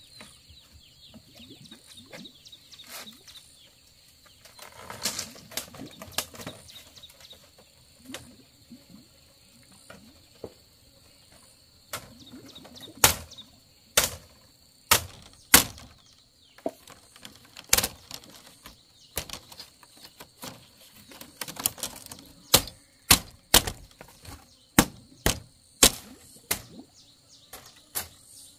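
Sharp wooden knocks and taps on a woven bamboo-strip panel, a few scattered at first, then coming every half second to a second from about halfway through. There is a short stretch of bamboo rustling about five seconds in.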